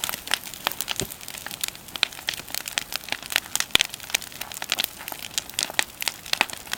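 Bonfire of wooden pallets crackling, with irregular sharp pops several times a second.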